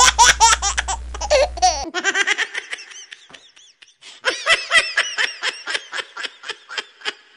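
People laughing in quick repeated ha-ha bursts: one bout that fades by about two seconds in, then a second, even run of laughs from about four seconds in.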